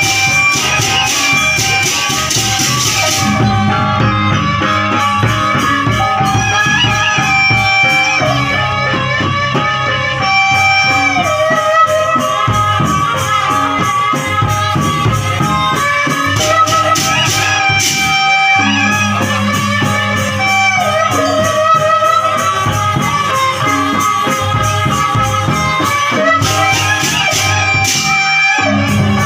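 Lombok gendang beleq ensemble playing: a bamboo suling flute carries a bending, ornamented melody over large drums and fast-struck cymbals. The cymbals are brightest in the first few seconds, then ease back.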